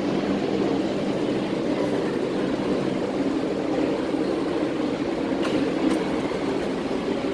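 Steady hum of an MTR Kwun Tong Line C-Train heard from on board, with two brief clicks about five and a half seconds in.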